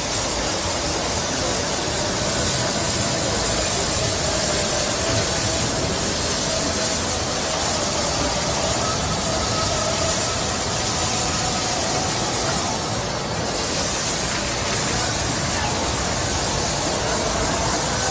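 Car-wash water spray, a steady loud hiss with a faint wavering hum underneath.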